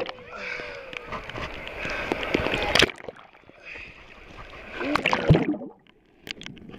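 Seawater splashing and sloshing over a camera held at the surface, cutting out in sudden drops as the camera dips under the water.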